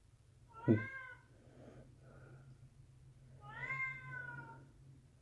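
A domestic cat meowing twice: a short call about a second in, then a longer, drawn-out meow near the end.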